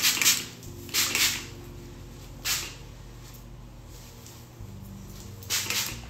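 Short swishing noises as long hair is lifted and handled during crimping with a hot crimping iron: a few in the first three seconds, one more near the end, over a faint steady hum.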